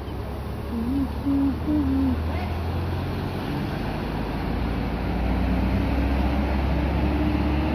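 Mercedes-Benz coach bus's diesel engine running as the bus pulls away. About a second in, a horn sounds a short tune of three or four stepped notes.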